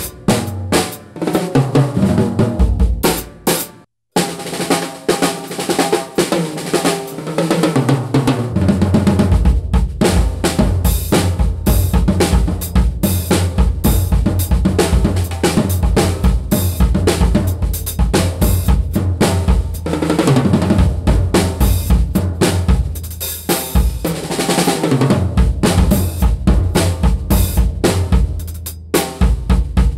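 Mapex VX drum kit played with sticks: snare, toms, bass drum, hi-hat and cymbals in a groove with fills. The kit is tuned high at first, then cuts off briefly about four seconds in, and the playing resumes with the drums at a medium tuning.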